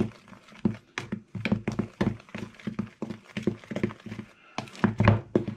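Big metal spoon stirring dry flour and salt in a mixing bowl: uneven clicks and knocks against the bowl, several a second, with the spoon scraping through the flour.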